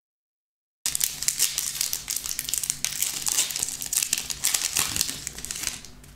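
A 2019-20 Panini Mosaic NBA trading-card pack's foil wrapper crinkling as it is torn open and the cards are pulled out, a dense run of crackles that starts abruptly about a second in.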